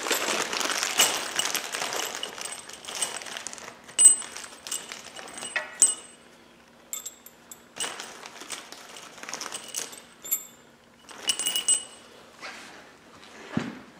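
A paper-wrapped plastic bag of hardware rustling as it is opened, then steel bolts, nuts and washers clinking together in a string of separate sharp metallic clinks as they are handled.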